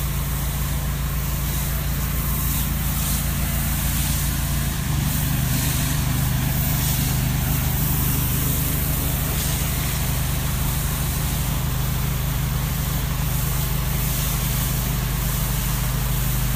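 Motor of a spray rig running steadily, with the hiss of the spray as a foaming bleach and soap solution is laid onto a concrete sidewalk; the motor's note steps up slightly about five seconds in.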